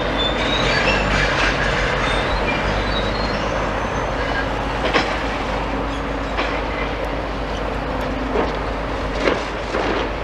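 Demolition excavator chewing into a building: a steady grinding crunch of breaking masonry, with sharp cracks of rubble several times and a few brief metal squeals early on.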